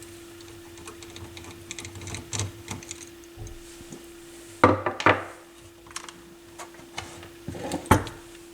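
Scattered light clicks and metallic taps of a screwdriver working a screw and bracket in a stereo receiver's chassis, with a few sharper knocks a little past halfway and again near the end. A faint steady hum runs underneath.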